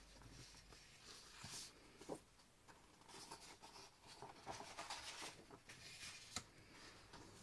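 Faint rustling and sliding of sheets of printed scrapbooking paper being handled and turned over, in several short brushes, with a light tap about six seconds in.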